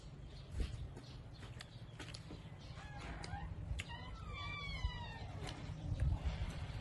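Close chewing and mouth clicks of someone eating dried fish with her hands. A bird-like call with a few falling notes sounds about three to five seconds in.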